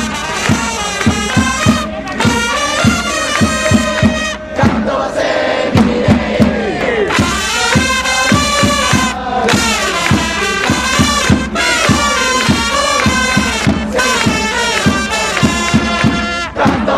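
Japanese pro baseball cheering section of BayStars fans singing and shouting cheer songs in unison over trumpets and a steady drumbeat of about three beats a second. A pitcher's chant ends with a brief drop about four and a half seconds in, and the starting left-hander's theme follows.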